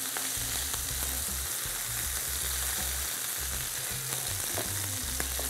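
Cubes of beef sizzling steadily in oil in a hot stainless steel skillet, searing brown on the outside, with a few faint clicks of tongs turning the pieces.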